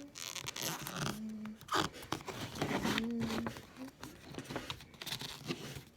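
Rustling and crinkling of material being handled, with a few short squeaks from an old chair, one about a second in and one rising and falling near the middle.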